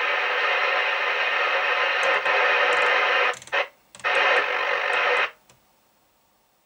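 Audioline 340 FM CB radio's speaker hissing loudly with the squelch open on an empty channel, while the channel selector knob is turned. The hiss drops out briefly about three and a half seconds in, comes back, then cuts off about five seconds in, leaving near silence.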